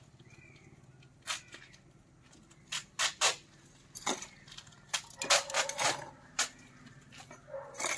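A small hand trowel scraping and digging in a heap of loose potting soil, with hands pressing soil into a plastic pot. It makes a series of short, sharp scrapes that come thicker from about four seconds in.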